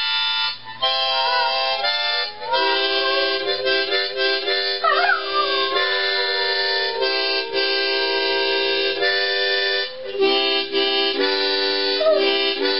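Harmonica playing sustained chords while a dog howls along, its voice wavering and sliding in pitch. About five seconds in, one howl swoops down from high and settles into a long held note.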